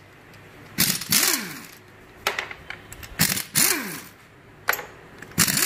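Handheld electric power tool with a socket extension, run in three short bursts; each starts with a sharp rattle and spins up and winds down in pitch within about half a second.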